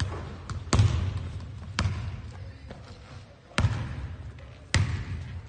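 Basketball bouncing on a hardwood gym floor: four sharp bounces, one to two seconds apart, each with a deep thud and a short echo from the hall.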